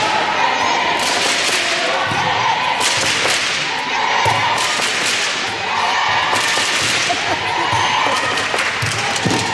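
Handball bouncing on a sports-hall floor and slapping into players' hands as it is passed, a series of sharp slaps and thuds, with voices shouting over it.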